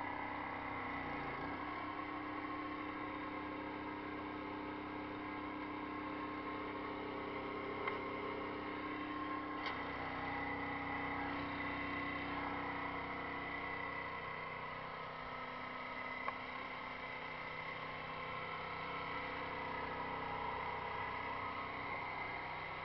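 Pressure washer running steadily: an even engine-and-pump hum with several held tones, and a couple of faint clicks.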